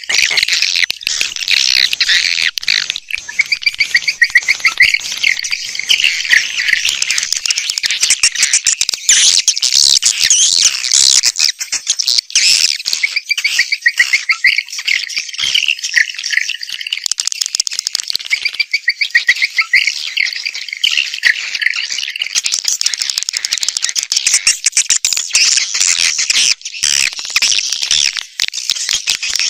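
Many swiftlets chirping and twittering densely and without pause, high-pitched. This is a swiftlet lure recording, the kind played from speakers to draw the birds into a building to nest.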